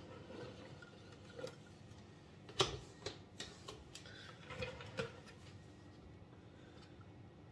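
A few light clicks and knocks of plastic cake-decorating tools being handled: a scraper set down and the cake turntable and its mat moved, with the sharpest knock about two and a half seconds in.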